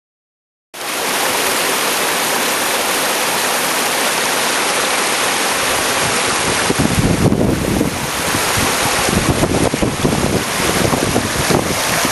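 Mountain stream cascading over granite rocks: a loud, steady rush of water that starts abruptly about a second in, with uneven low rumbling joining about halfway through.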